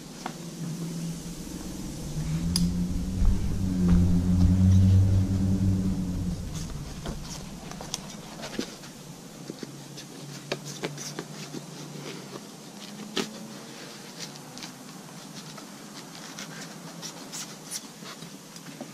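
Scissors snipping through foam-backed headliner fabric around a cardboard template, a scatter of short clicks through the second half. Early on, a steady low motor-like hum swells and fades out; it is the loudest sound.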